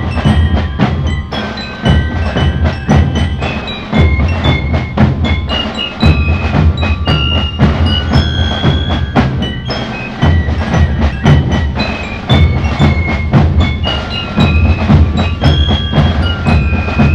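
Military marching band of drums and bell lyres playing: a bright bell-lyre melody over steady snare and bass drum beats.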